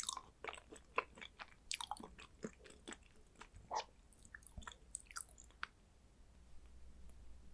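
Chewing of thin-sliced raw Korean hanwoo beef close to the microphone, with many quick mouth clicks. It stops about two-thirds of the way through, leaving a faint low hum.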